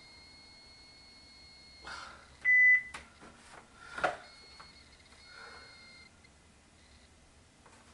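A single loud electronic beep, one steady high tone lasting about half a second, over a faint steady high whine that drops out and comes back; just after the beep come paper rustles and clicks from envelopes being handled.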